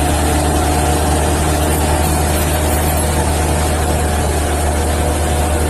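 Caterpillar D6G crawler bulldozer's diesel engine running steadily as the machine pushes dirt with its blade: a loud, even, low drone.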